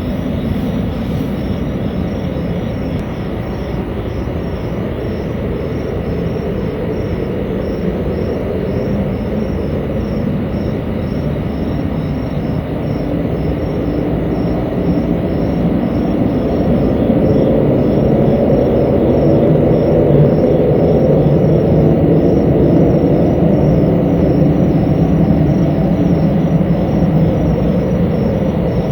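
A loud, steady, low rumbling drone that swells about halfway through and eases slightly near the end, with faint regular high pulses above it. It is the unexplained noise that residents reported hearing for a long while that evening.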